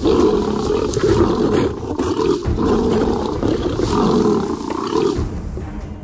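Young male desert-adapted lions growling and roaring as they fight. The sound is continuous and eases off about five seconds in.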